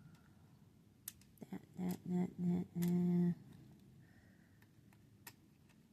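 A woman hums four short notes, the last one held about half a second and loudest. A few light clicks come just before them and once more near the end.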